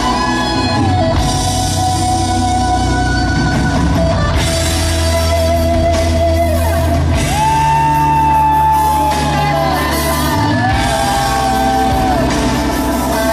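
Rock music with a singer holding long, wavering notes over steady bass and guitar.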